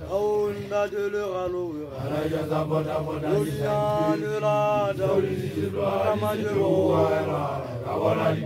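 Voices chanting in long, drawn-out held notes, each phrase falling in pitch at its end.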